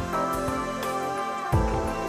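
Soft, gentle background music with plucked-string tones, and a short low thump about one and a half seconds in.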